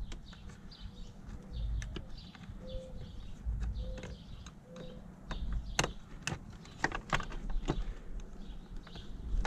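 Irregular sharp plastic clicks and scraping as a small flat-head screwdriver prises the clip-on backs off a fuse block's connectors, the loudest clicks about six to seven seconds in.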